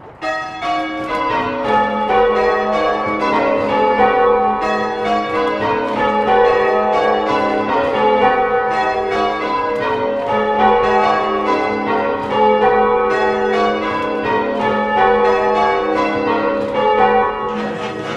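A ring of church tower bells rung full circle with ropes and wheels, as in English change ringing. Several bells strike one after another in a steady run that starts about half a second in, the ringing of each bell overlapping the next over a lasting low hum.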